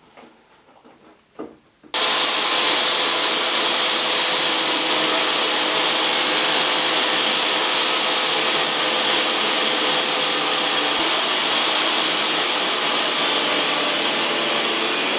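Portable table saw running steadily while a wooden strip is ripped lengthwise through the blade. The saw starts abruptly about two seconds in, after a few light clicks.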